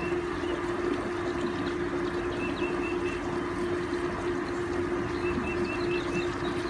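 Steady mechanical hum with a constant low tone and an even hiss under it. Three times, a short run of four or five quick high chirps cuts across it.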